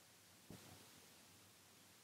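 Near silence: room tone, with one faint short knock about half a second in.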